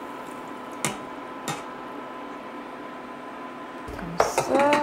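Pork broth boiling in a stainless steel saucepan as a steady hiss over a faint hum, with two light metallic clicks from a wire spider strainer against the pot about one and one and a half seconds in.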